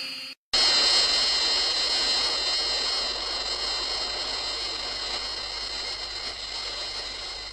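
Showa-era Gigan roar sound effect: one long, high screeching cry with several steady high tones over a harsh noise. It starts after a brief gap and slowly fades.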